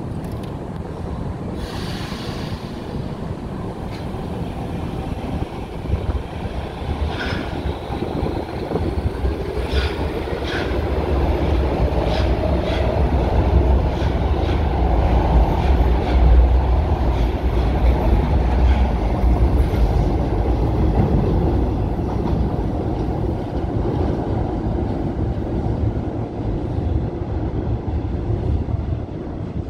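A São Paulo Metro fleet K electric train pulling out of the platform, running louder as its cars pass, with clicks of the wheels over rail joints and a faint rising motor whine. The sound eases again toward the end.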